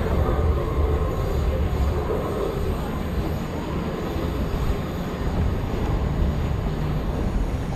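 Marmaray commuter train running on the track beside the platform: a steady low rumble with a faint whine in the first couple of seconds.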